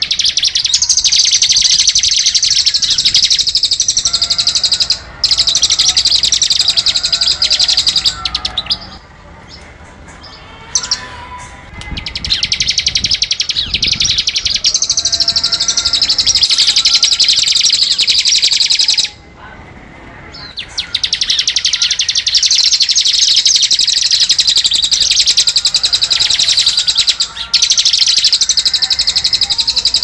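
Ciblek (bar-winged prinia) singing its rapid, drill-like trill in long bouts of several seconds. There are two short breaks where only softer, lower chirps are heard.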